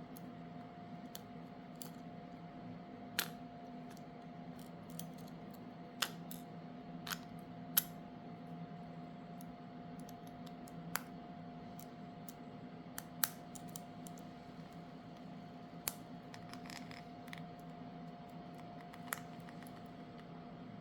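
Irregular small sharp clicks and taps, about a dozen spread unevenly, from tools and small parts being handled while a smartphone is taken apart, over a steady low electrical hum.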